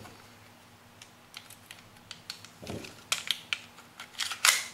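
Airsoft Glock 17 pistol being handled and reassembled: a string of small plastic and metal clicks and taps as the slide is worked onto the frame, with a soft thud a little past halfway and the clicks coming thicker near the end.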